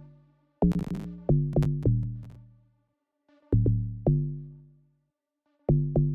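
Amapiano-style log drum pattern playing back in FL Studio: short, pitched bass notes in quick clusters of two to four, each dying away fast, with pauses between the clusters. A sharp percussive hit lands with the notes about three quarters of a second in.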